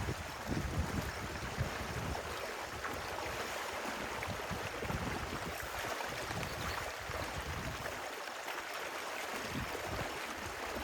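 Stream water flowing steadily, with irregular low rumbles of wind on the microphone at times.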